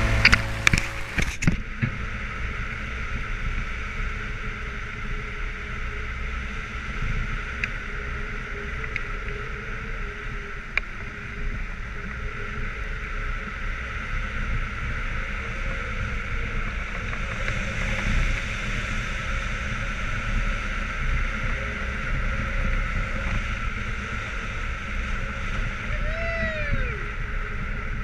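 Wind rushing over the microphone of a camera on a hang glider in flight, a steady rushing rumble in strong wind. A background music track ends in the first second or two, and a short whistle rising and falling in pitch sounds near the end.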